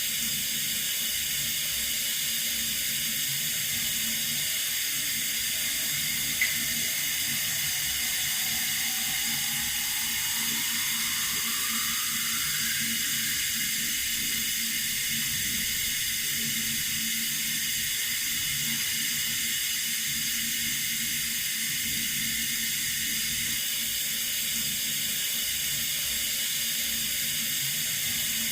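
Water running steadily from a tap, an even hiss. One short click about six seconds in, and a faint tone rising in pitch around the middle.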